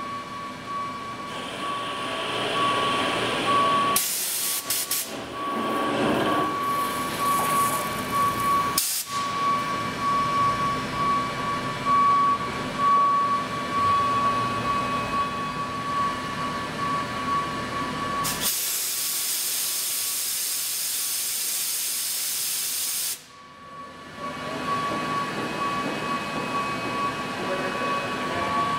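Tormach Slant Pro CNC lathe turning an aluminium part: a steady whine from the running machine over constant hiss. There are louder bursts of hiss about 4 seconds in, briefly near 9 seconds, and for several seconds past the middle.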